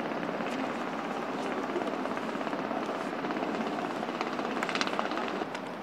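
Steady outdoor rushing noise, with a few sharp ticks near the end.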